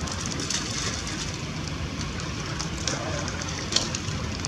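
Long-tailed macaque's feet splashing through shallow rainwater, with a few short sharp splashes, the loudest near the end, over a steady low rumble.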